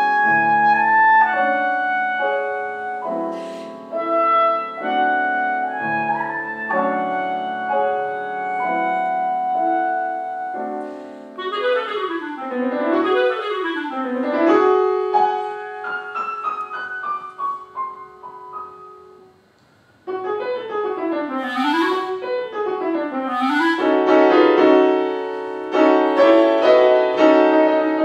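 Clarinet and grand piano playing classical music. Melodic passages give way to fast runs sweeping up and down, with a brief break about two-thirds of the way through, after which the runs return and settle into sustained notes.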